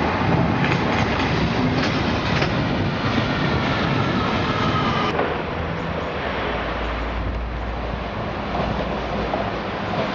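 London Overground class 172 Turbostar diesel multiple unit running into the platform with a high whine over the rail noise. After a sudden cut about halfway through, a class 172 unit pulls away, its diesel engine a low steady drone.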